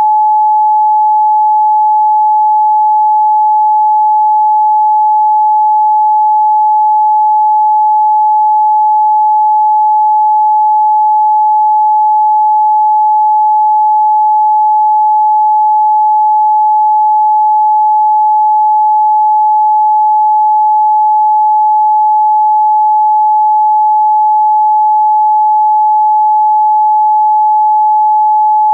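Pure 855 Hz sine test tone, a single steady, unbroken pitch held at a constant level.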